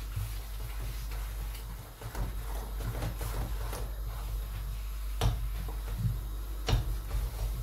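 Wooden spoon stirring and turning thick cornmeal mash in a non-stick pot, scraping irregularly around the pot, with two sharp knocks of the spoon against the pot, one about five seconds in and another near seven seconds.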